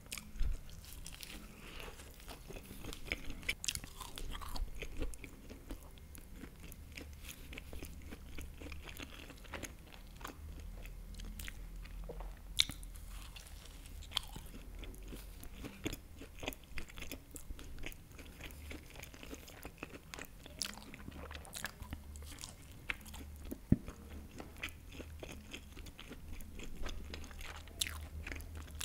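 Close-miked eating of a baked empanada with a golden pastry crust and melted cheese filling: biting and chewing with many small crackles and wet mouth clicks. A few sharper clicks stand out, one about midway and one later on.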